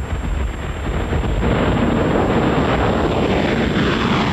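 Jet noise of a Boeing 747 climbing out low overhead after takeoff. A rushing roar grows louder about a second and a half in, and the engines' whine falls slowly in pitch as the aircraft passes.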